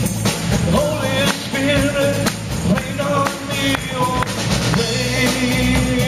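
Live rock-style band music with drums and a lead melody line carried at the vocal microphone.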